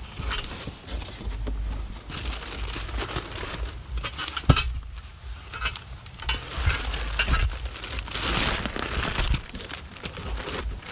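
Irregular clinks and knocks of hard objects being handled, with one sharp knock about four and a half seconds in.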